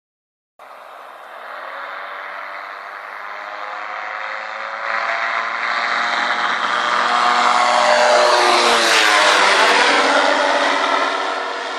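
P&M Aviation QuikR 912S weight-shift microlight trike making a low pass, its Rotax 912S four-cylinder engine and propeller running at steady power. The sound begins abruptly just under a second in, grows louder as the trike approaches, peaks as it passes overhead eight to ten seconds in with the pitch dropping, then starts to fade.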